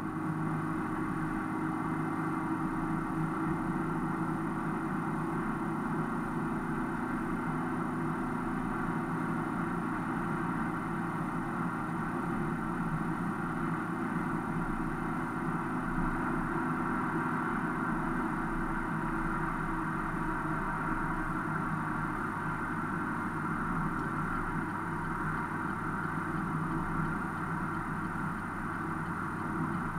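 Car driving at steady speed on a dual carriageway, heard from inside the cabin: a constant hum of engine and tyre road noise.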